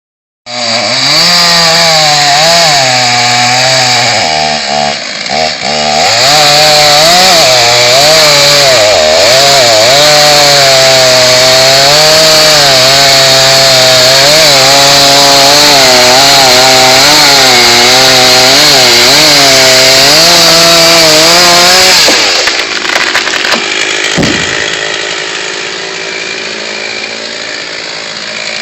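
Chainsaw running loud and cutting into pine wood, its engine pitch dipping and recovering as the chain loads in the cut. About 22 seconds in the engine drops off and the sound turns quieter and rougher.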